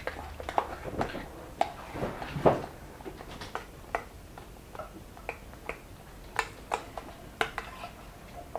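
Metal spoon stirring thick pastry cream in a glass bowl, giving irregular clinks and ticks against the glass as butter is worked in.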